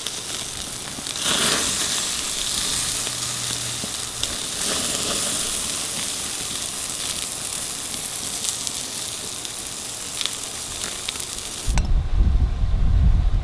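Ribeye steaks sizzling on a cast iron grill grate over a charcoal fire, a steady hiss with scattered crackles that grows louder about a second in. Near the end the sizzle cuts off and low wind rumble on the microphone takes over.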